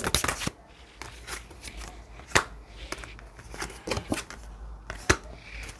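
A deck of cards being shuffled and handled: irregular soft clicks and rustles, with two sharper snaps, one a little past two seconds in and one about five seconds in.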